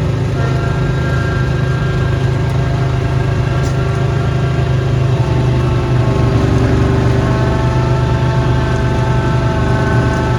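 Small gasoline engine of a snow-clearing machine running steadily at a constant speed, its pitch shifting only slightly about halfway through.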